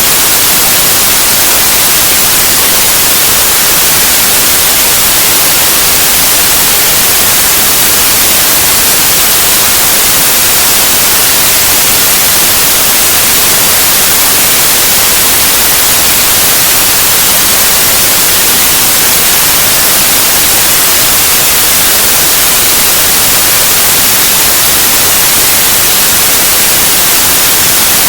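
Loud, steady white noise: an even hiss across the whole range, brightest in the highs, with no change.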